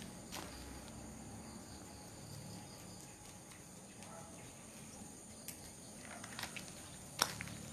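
Steady high-pitched chirring of crickets, with a few sharp clicks and scuffs of steps on gritty concrete in the last couple of seconds.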